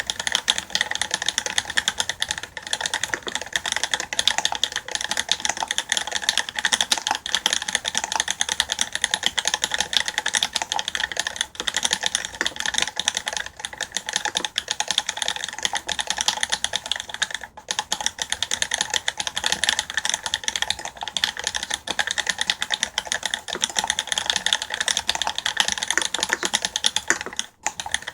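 Fast continuous typing on a custom mechanical keyboard with lubed vintage Cherry MX Black linear switches on a stainless steel plate in an aluminium-bottomed case, the keystrokes clacking in a dense stream with brief pauses a few times.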